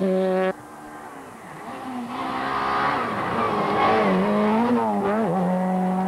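A rally car's engine holds high revs and cuts off sharply about half a second in. Then a Ford Puma rally car's engine rises as it slides through a gravel corner, with gravel spray and tyre noise, loudest about four seconds in as it passes. Its pitch dips briefly at a gear change near the end.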